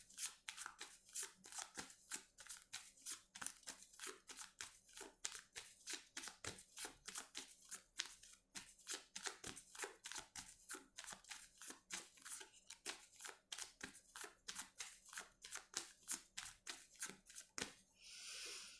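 Tarot deck being shuffled by hand: a quick, faint run of card clicks, about three a second, with a short sliding hiss of the cards near the end.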